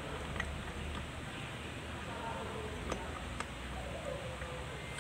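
A few light metallic clicks as steel gears are slid and seated onto a shaft inside a Kubota B6001 tractor's transmission case, over a steady low hum.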